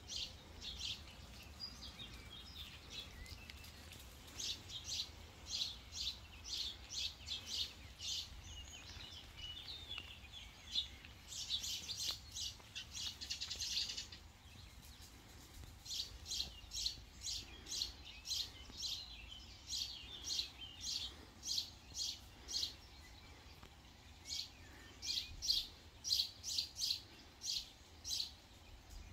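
Outdoor chirping: short high chirps repeated about two a second in long bouts, with a denser, unbroken stretch around the middle.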